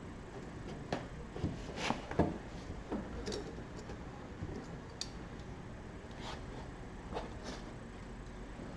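Scattered light clicks and scrapes of a hand tool working on a broken plastic oil drain plug as it is turned out of a Kawasaki twin-cylinder engine block, a tick or knock every second or so.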